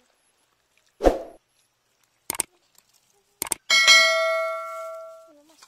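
A thump and two sharp clicks, then a bell-like metallic ding that rings on and fades over about a second and a half.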